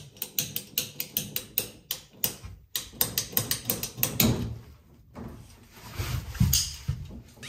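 Hand tools at work on plumbing: a quick run of sharp clicks, about four to five a second, broken by brief gaps, then a few louder knocks and low thumps in the second half.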